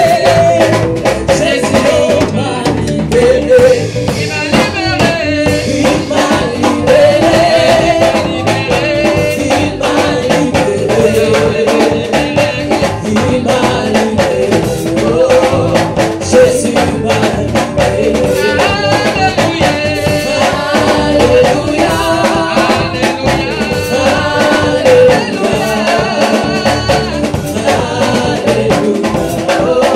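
Live band playing a gospel worship song: voices singing over a drum kit, with steady drum hits throughout.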